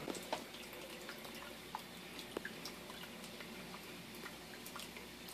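Faint fish-tank water sounds: scattered small drips and ticks over a low, steady hum.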